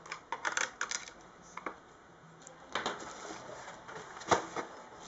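Light clicks and taps of a small screwdriver and screws against a laptop's plastic case as the screws come out, with one sharper knock near the end.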